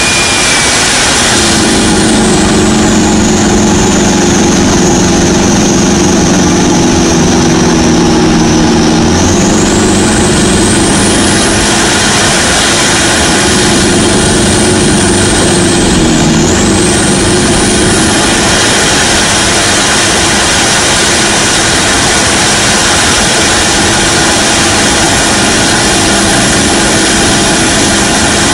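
Toyota Innova's tuned 1KD turbodiesel engine pulling at highway speed, around 140 km/h, under heavy wind and road noise. Its drone is strong for the first third, fades, comes back, and drops away about two-thirds of the way through.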